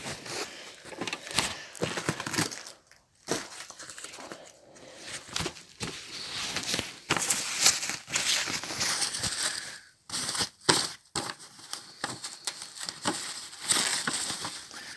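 Packaging being crinkled and pulled off a toy washing machine by hand: irregular rustling and crackling with many sharp clicks, broken by a few short pauses.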